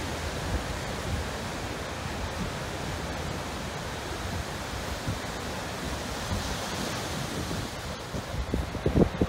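Heavy post-storm surf breaking over sandstone ledges, a steady rush of whitewater with water spilling off the rock shelf. Wind buffets the microphone in gusts near the end.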